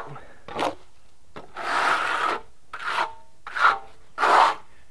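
Stucco float scraping over a fresh patch of sanded cementitious color coat in about five separate gritty strokes, the longest about a second and a half in and the last near the end. The float is blending the patch into the wall's existing sand finish over repaired hairline cracks.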